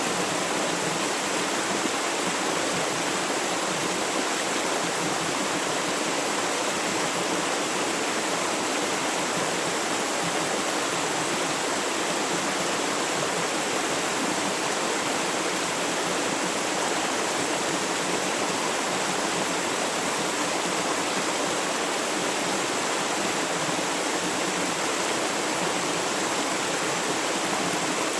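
River water flowing steadily over stones: an even, unbroken rushing hiss.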